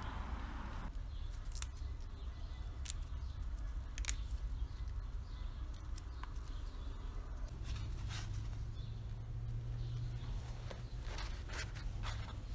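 Light, scattered clicks and crinkles of hands handling the lavash flatbread and herbs, over a steady low outdoor rumble.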